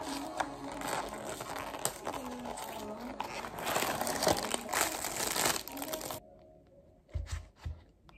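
Crinkly wrapping or packaging material being handled and crumpled, a dense run of crackles and rustles that cuts off suddenly about six seconds in. A few dull thumps follow near the end.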